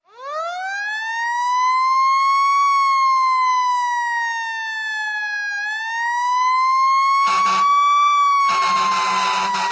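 A mechanical siren winds up from a low growl to a high wail, sags, then winds up again and starts to fall. Near the end, a short blast and then a longer one of a low, harsh horn sound over it.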